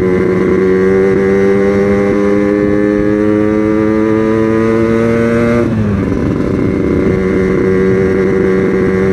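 Yamaha RX-King two-stroke single-cylinder engine heard from the rider's seat, its note climbing slowly under acceleration, then dropping suddenly a little over halfway through and running on steadily at a lower pitch.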